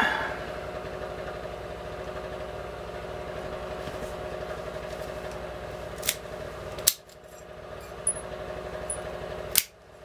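Key turned in a solid brass padlock, giving a few sharp metallic clicks in the second half as the lock is worked open, over a steady low hum that fades away about seven seconds in.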